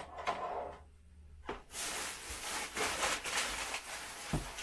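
Packing material rustling as a wrapped part is handled and unwrapped. The rustling starts about a second and a half in and keeps going, with a soft knock near the end.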